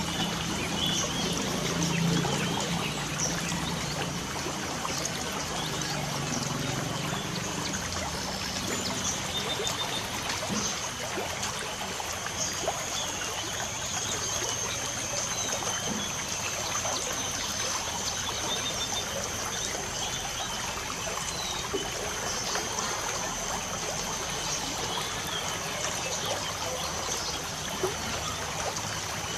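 Light rain falling steadily, a dense patter of drops, with birds chirping now and then. A thin, steady high-pitched tone sets in about twelve seconds in.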